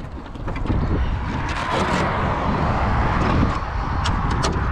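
A vehicle passing on the road: a steady rush of tyre and wind noise that builds over the first second and then holds. A few light clicks run through it as the plastic body of the RC car is lifted off its chassis.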